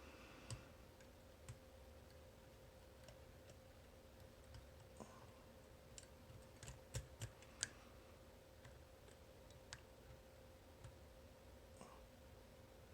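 Faint, scattered clicks of a homemade pick turning the discs inside an Abloy Classic disc-detainer cam lock, with a short cluster of sharper clicks about seven seconds in.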